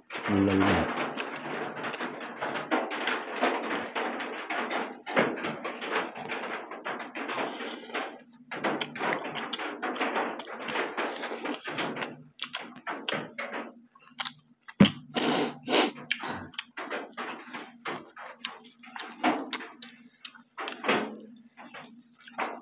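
Close-up eating noises: chewing, lip-smacking and wet crackly mouth sounds from people eating boiled beef and rice by hand, with a few louder knocks against the table, over a faint steady low hum.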